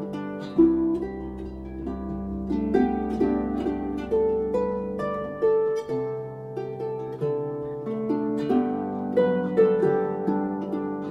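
Harp playing a flowing melody of plucked notes that ring on, over low notes sustained underneath.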